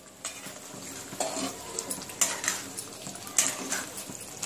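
Metal spatula stirring marinated chicken through thick masala in a metal kadhai, scraping the pan about once a second over a faint sizzle of frying.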